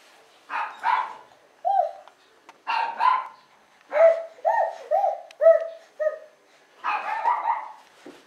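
Toddler imitating a dog, giving about a dozen short, high-pitched barks in clusters, with a quick run of yelps about four seconds in.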